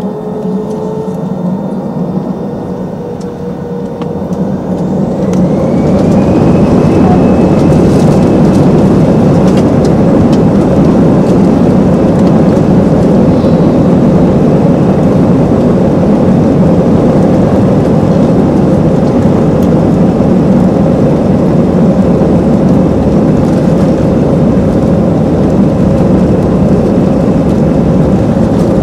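Airbus A320 jet engines heard from inside the cabin over the wing, spooling up to takeoff thrust. A whine rises over the first several seconds and the sound grows much louder about five seconds in, then settles into a steady, loud roar through the takeoff roll.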